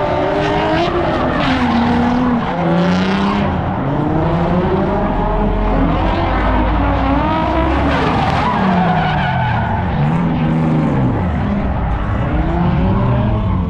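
Car engine revving hard, its pitch rising and falling again and again, with tyres skidding, loudest in the first few seconds: a car being driven sideways in a drift.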